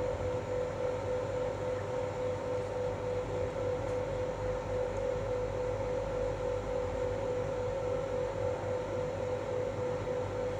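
Steady machine hum with a constant mid-pitched tone running through it, unchanging throughout.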